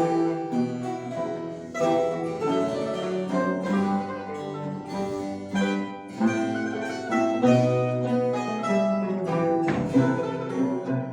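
A mandolin ensemble playing music, plucked strings carrying a melody over lower bass notes.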